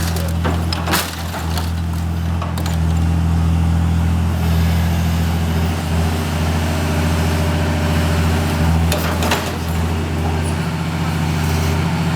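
Diesel engine of a 22-tonne O&K RH6 hydraulic excavator running steadily under load, with a few sharp knocks near the start and again about nine seconds in.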